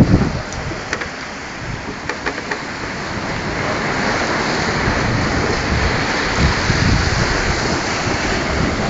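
Water rushing and foaming along the hull of a DK46 racing yacht sailing fast downwind, with wind gusting on the microphone. The rush of water grows louder from about three seconds in.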